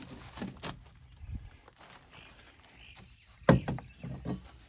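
Scattered knocks and thuds of rotted plywood flooring being pulled up and handled, with one sharp knock about three and a half seconds in.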